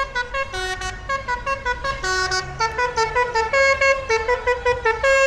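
Van's musical horn playing a fast tune of short, stepped notes, several a second.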